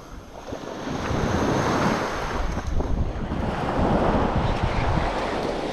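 Small surf washing up the beach, with wind buffeting the microphone in gusts. It grows louder about half a second in.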